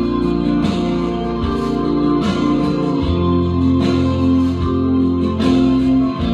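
Instrumental break of a slow song: guitar accompaniment with held chords and a steady, unhurried beat, no voice.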